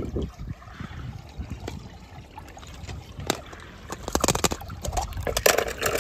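Water trickling and sloshing as wet toy cars and a plastic capsule are handled over a plastic bowl. A sharp click about three seconds in, then a run of clicks and knocks of the toys and plastic from about four seconds in.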